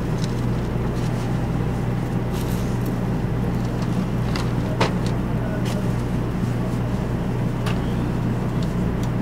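Steady low hum inside a stationary Series 500 Shinkansen car at the platform, from the train's onboard equipment, with a few faint clicks.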